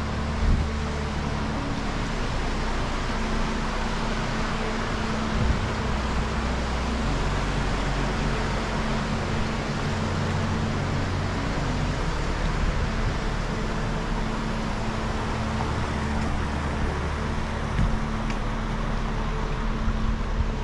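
Steady road traffic noise, a continuous rush with a low hum underneath, broken by a few soft thumps.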